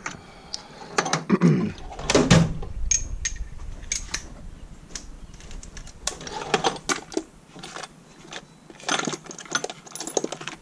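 Steel sockets and socket extensions clinking and rattling as a hand sorts through a socket tray and a drawer of loose tools in a metal tool chest. Short, irregular metallic clicks, with busier bursts of rummaging a few times.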